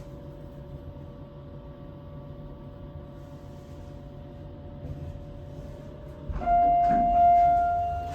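Steady hum inside a late-1990s Otis hydraulic elevator car. About six and a half seconds in, a loud single-tone electronic chime sounds suddenly with a few clicks, then rings and fades over about two seconds, signalling the car at its landing.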